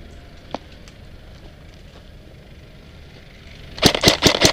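Near the end, a G&G F2000 airsoft electric rifle starts firing on full auto: a fast, even string of sharp shots, several a second. Before that there is only low outdoor background and a single click about half a second in.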